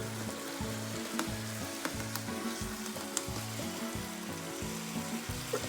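Hamburger meat in taco seasoning and water sizzling in a pan, with a few light clicks from stirring. Background music with a low bass line plays under it.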